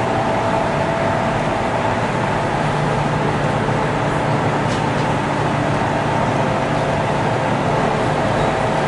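CR400BF Fuxing high-speed train running at steady speed, heard from inside the car's vestibule: constant rolling and air noise with the steady hum of its traction motors and equipment, the tones holding one pitch.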